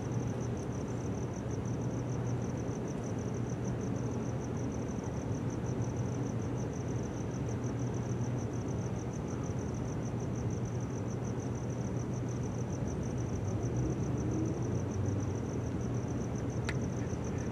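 Steady ambient background: a constant low hum with a cricket chirping in a high, rapid, even pulse throughout. A single faint tick comes near the end.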